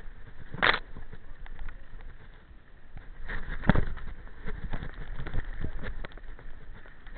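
Mountain bike rolling fast down a rough dirt singletrack: a steady rumble with frequent knocks and rattles over stones and roots, and two louder knocks, one just under a second in and one about halfway.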